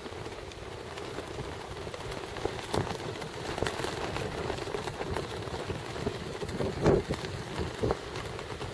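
Wind buffeting the microphone, a steady hiss with a flickering low rumble that swells about seven seconds in, with scattered clicks and taps.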